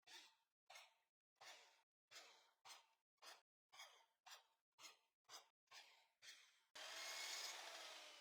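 Near silence, with faint short swishes repeating evenly about twice a second, and a faint steady hiss rising near the end.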